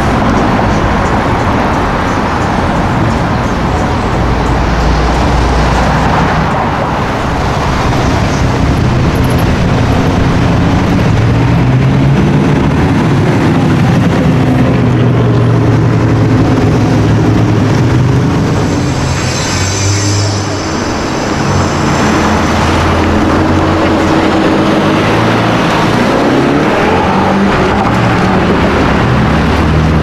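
V8 engines of performance cars driving past one after another on a city street, among them an Audi RS6 Avant and a Fox-body Ford Mustang GT convertible, the engine notes rising and falling as they go.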